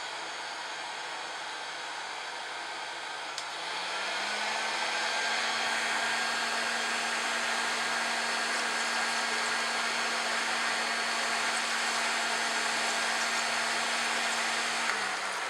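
An electric hot-air blower running steadily with a whirring motor. About four seconds in it switches up to a higher, louder speed, and it drops back down just before the end.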